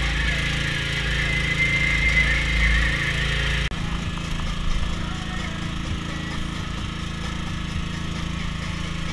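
Small petrol generator running steadily, a continuous even engine drone powering the boat's green squid-fishing lights.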